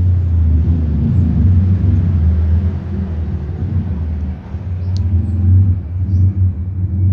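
Loud, steady low rumble of a running engine, swelling a little in level, with a brief high squeak about five seconds in.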